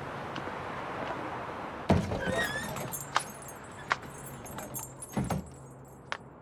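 Street background noise gives way, about two seconds in, to a door knocking open with a brief jingle, like a shop door bell. A second knock follows about five seconds in, and sharp footsteps on a hard floor come roughly every 0.7 seconds.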